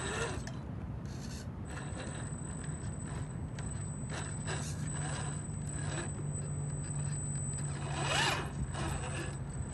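Boom Racing BRX02 scale RC crawler's electric motor and geared drivetrain whining at low speed as it crawls through loose dirt, with small crunches and scrapes from the tyres. The motor surges briefly, louder and rising in pitch, about eight seconds in.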